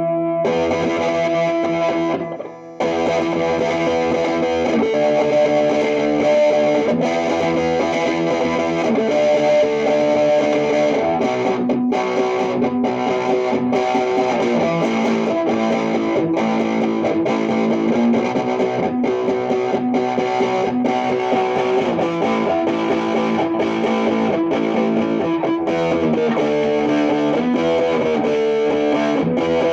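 Electric guitar played through a home-built one-knob fuzz pedal turned all the way up, straight into an amp: thick fuzzed notes and chords held and changing every second or two. A brief break in the playing comes about two and a half seconds in.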